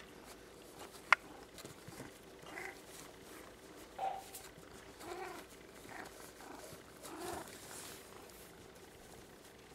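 Domestic cat making several short, soft vocal sounds, with a single sharp click about a second in.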